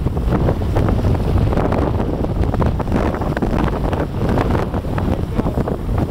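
Wind buffeting the microphone aboard a sailboat under way: a steady, loud rumble with many short splashy rushes of water along the hull.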